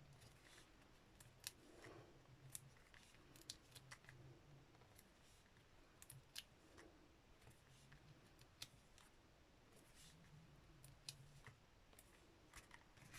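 Faint, scattered small clicks and paper sounds of hands handling card and a sheet of foam adhesive dimensionals, pressing them onto the back of paper cut-outs, over a quiet room.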